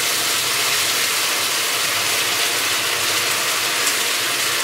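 Lamb shanks frying in hot oil in a pan: a steady, dense sizzle with fine crackling from the spitting oil.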